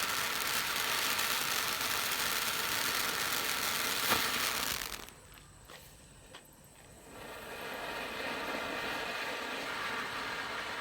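Firework fountains hissing as they spray sparks, with a sharp crack about four seconds in. The hiss cuts off suddenly about a second later, a few small pops follow, and a new fountain's hiss builds and holds steady from about seven seconds in.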